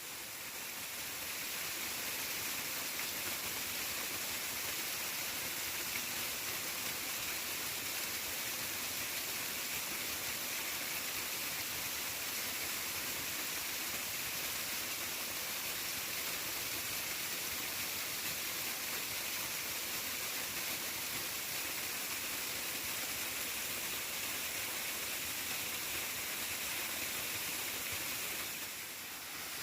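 A steady rush of flowing water, with a brief dip near the end.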